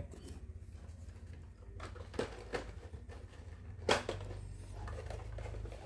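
Blister-carded die-cast toy cars being handled: a few light plastic-and-card clicks and rustles, the sharpest about four seconds in, over a low steady hum.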